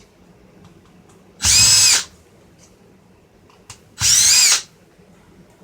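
Power driver running in two short bursts, about two and a half seconds apart, each whining up to speed and winding down as it backs out a small screw from the car radio's housing.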